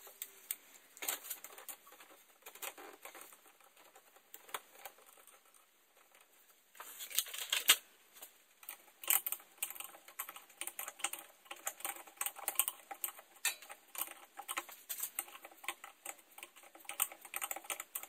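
Irregular light clicking and tapping of a new steel brake line being handled and fitted under the car. The taps are sparse at first, then come thicker and louder about seven seconds in.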